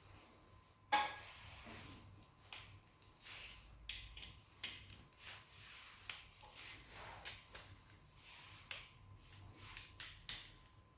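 Scattered light clicks and taps of hand tools and metal engine parts being handled during timing-chain and tensioner assembly, with a sharper knock about a second in.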